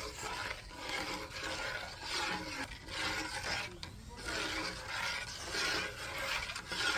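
A spatula scraping and stirring semolina halwa in a cooking pan, in rhythmic rasping strokes about once a second.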